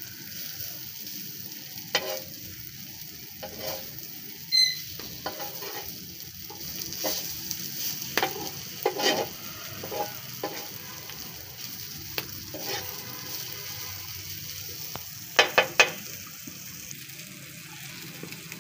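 Chicken keema frying on a hot tawa griddle: a steady sizzle under the scrape and clink of a metal spatula stirring and breaking up the mince, with three quick sharp taps a little before the end.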